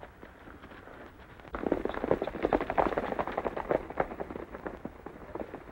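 Horses galloping on a dirt track: light hoofbeats at first, then about a second and a half in a dense clatter of many hooves sets in, loudest in the middle, thinning out near the end.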